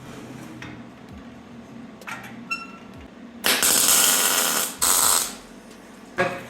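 Steel stove parts being fitted: a single ringing metal clink, then two short welding tack bursts, a hissing crackle of about a second and a second shorter one, tacking a convection tube into place. A knock near the end.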